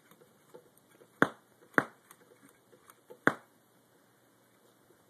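Three sharp clicks: the first about a second in, the next half a second later, the last about a second and a half after that, with faint small ticks in between.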